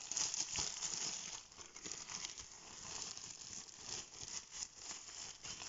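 Thin plastic packaging bag crinkling and rustling as a microphone boom arm is slid out of it by hand, with many small irregular crackles.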